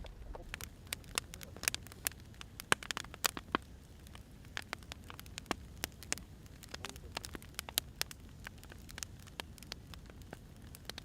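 Firewood burning in a fire, crackling: irregular sharp pops and snaps, some loud, over a low steady rumble.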